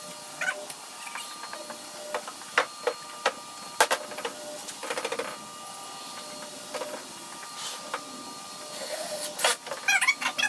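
Scattered light clicks and knocks from a person handling tools on a plywood sheet, over a faint steady hum.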